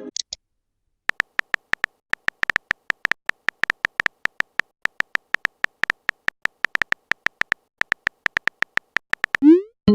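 Text-typing sound effect: a rapid, uneven string of short electronic blips at one pitch, about five a second.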